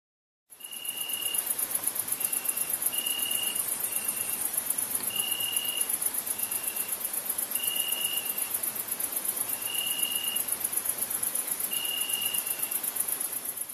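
Night insects chirping: a dense, fast-pulsing high chirr, with a clearer, lower chirp repeating about every second or so. It starts about half a second in.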